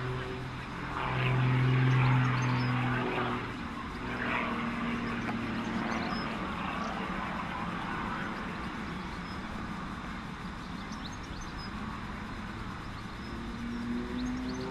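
Extra 330M aerobatic monoplane's piston engine and propeller droning through an aerobatic sequence. The pitch and loudness rise and fall as it manoeuvres, and it is loudest in the first few seconds.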